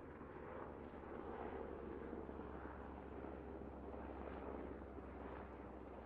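Helicopter flying, a steady rotor and engine noise with a low hum underneath.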